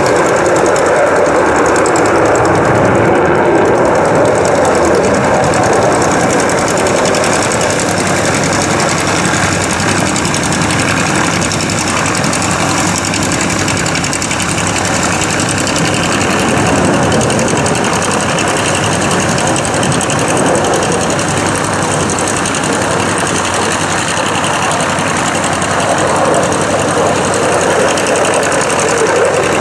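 An F-16 fighter's jet engine during a display flight: loud, continuous jet noise that rises and falls slightly in level.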